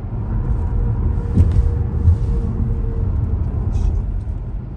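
Road noise inside a moving car's cabin on a highway: a steady low rumble of tyres and engine, with two brief thumps about one and a half and two seconds in.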